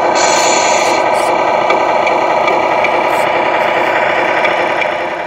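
Recorded diesel truck engine sound idling steadily, played through the speaker of the Tamiya Grand Hauler model semi's sound unit, with a short hiss in the first second. It drops a little in level near the end.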